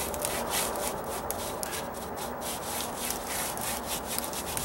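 Paintbrush bristles scrubbing Dryvit stucco patch material onto a textured stucco column in rapid, repeated scratchy strokes, several a second.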